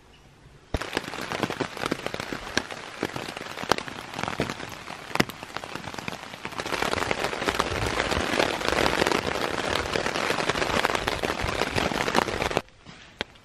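Heavy rain pattering on a DD Superlight tarp, a dense crackle of many small drop hits. It starts about a second in, grows louder about halfway through, and cuts off suddenly near the end.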